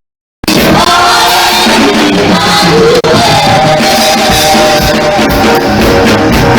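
Loud music with singing, held sung notes over a full accompaniment. It starts after a half-second of dead silence and drops out for an instant about three seconds in.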